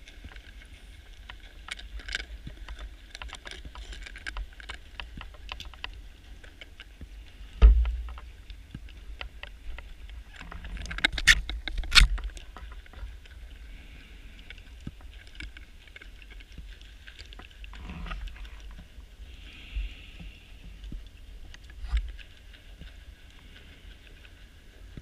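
Underwater sound of a scuba diver's gear heard through the camera housing: scattered clicks and crackles, a thump, then a rising rush of exhaust bubbles that ends in two sharp pops near the middle, and a few smaller knocks later, over a steady low rumble and hiss.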